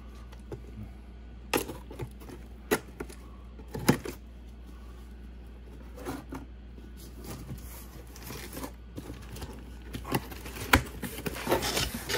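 Cardboard packaging being handled: a few sharp separate knocks and taps, then denser scraping and rustling near the end as the car and its cardboard insert are pulled from the box.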